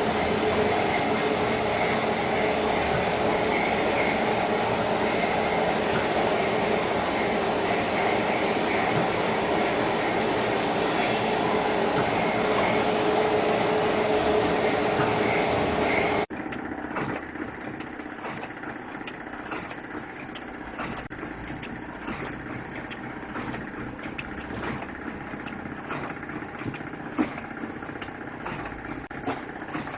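Liquid sachet packaging machine running: a loud, steady mechanical whir and hiss with thin, high whines. About halfway through, the sound cuts abruptly to a quieter stretch of the machine cycling with regular clicking.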